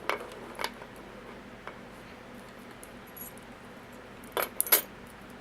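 Small metal clicks and clinks from the parts of an American Lock 1100 padlock and tools being handled during disassembly: two just after the start and two more near the end.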